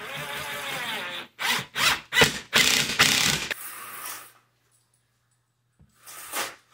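Power drill-driver driving wood screws through a metal blind bracket into the ceiling: a run with the motor's pitch dropping as the screw bites, then several short trigger bursts to seat it. After a pause of over a second, one short burst starts the next screw near the end.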